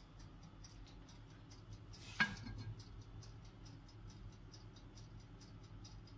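Mechanical oven timer ticking rapidly and evenly as it counts down, over a low steady hum, with one brief louder sound about two seconds in.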